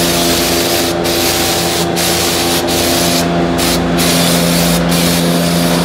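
Aerosol brake cleaner spraying onto the rear brake assembly, a loud hiss in long bursts with several short breaks. A steady mechanical hum runs underneath.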